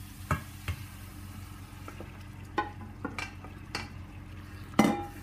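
Chopped aubergine scraped out of a glass bowl with a wooden spatula into a pan of sizzling tomato sauce: a low, steady sizzle under a handful of knocks and taps, the loudest near the end with a brief ring.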